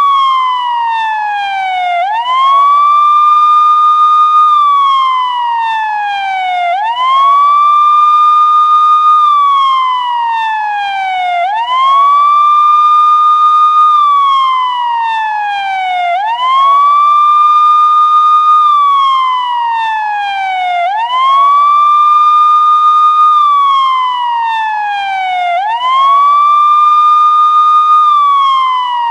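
Police car siren sounding a steady wail. The pitch rises quickly, holds at the top, then slides slowly down, repeating evenly about every four and a half seconds.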